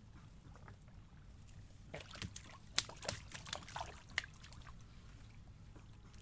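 A quick run of knocks and slaps in the bottom of a small canoe as a fish is worked free of a cast net, the loudest knocks about halfway through, over a low steady hum.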